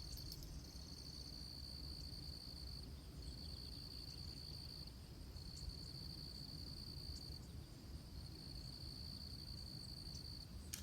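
Faint, high-pitched insect trilling, a steady note held in long pulses of about two seconds with short breaks between them, over a low background rumble.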